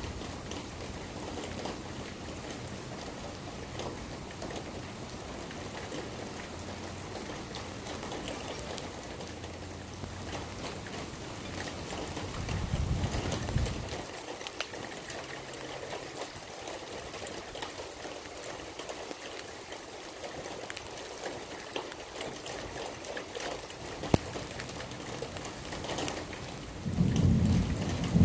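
Steady rain falling during a thunderstorm, with scattered sharp drop ticks. A brief low thunder rumble comes about halfway through, and a louder rumble rolls in near the end.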